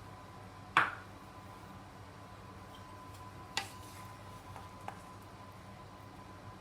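A few sharp clicks over a faint steady hum: a loud one about a second in, a second one about three and a half seconds in, then two faint ticks.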